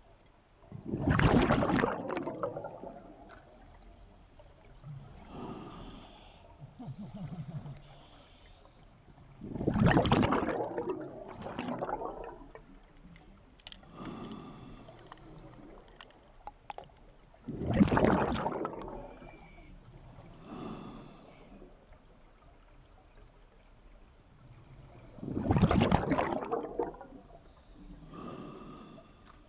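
Scuba diver breathing underwater through a regulator: four loud rushes of exhaled bubbles about eight seconds apart, each lasting a couple of seconds, with fainter hissing inhalations in between.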